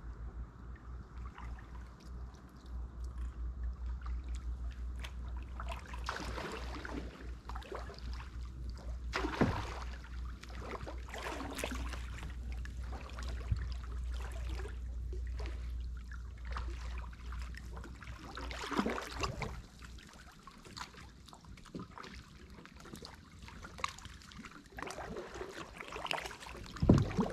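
Kayak paddle strokes dipping and splashing in a shallow river every few seconds, with water trickling and lapping at the hull, over a steady low rumble. The sharpest splashes come about nine seconds in and again near the end.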